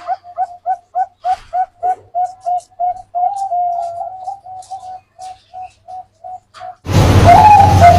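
Zebra dove (Bangkok-type perkutut) cooing: a rapid string of short coos, about three a second, broken in the middle by one longer drawn-out note, then more short coos. Loud music cuts in near the end.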